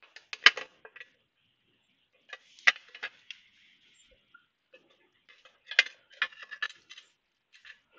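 Metal primary chaincase cover of a 1971 BSA B50 being worked loose by hand and eased off the crankcase, giving groups of sharp clicks and knocks about a second in, around two and a half seconds in, and around six seconds in.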